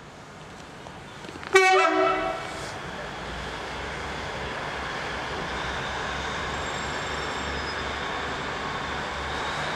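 Class 150 Sprinter diesel multiple unit sounding its two-tone horn once, about a second and a half in: a short high note followed by a lower note. Its underfloor diesel engines then run up louder and keep running steadily.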